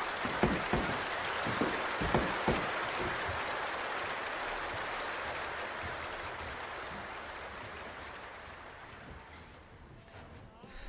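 A crowd applauding: dense, steady clapping that slowly fades away, with a few sharp knocks in the first two or three seconds.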